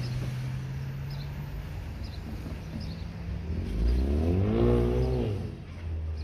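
Diesel locomotive shoving loaded stone hopper cars up a steep grade. Its engine drones steadily at first, then revs up about four seconds in and eases back down a second or so later.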